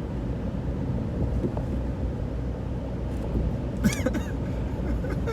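Road and engine noise inside a moving car's cabin: a steady low rumble, with one brief sharp sound about four seconds in.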